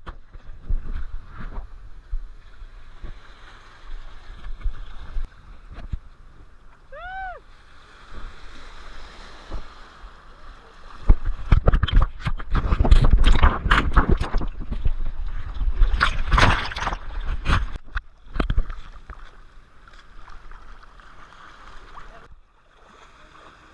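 Seawater splashing and sloshing against a surfboard right at a board-mounted camera, in uneven slaps and rushes, with a longer, louder stretch of rushing water in the middle as the board runs through the waves. A short rising-and-falling call is heard about a third of the way in.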